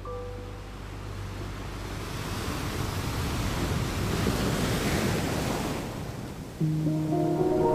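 Ocean surf washing onto a beach, the noise of the waves swelling to a peak about midway and then dying down. Music with sustained tones comes in near the end.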